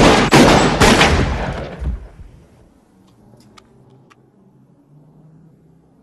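A large handgun fired in a rapid string of shots over about two seconds, the shots ringing away as they stop. A few faint clicks follow a little later.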